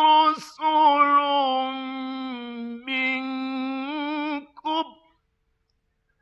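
A male Quran reciter's voice chanting in long, drawn-out melodic notes with ornamented pitch turns. It breaks briefly twice, sinks lower in pitch midway before rising again, and stops about five seconds in.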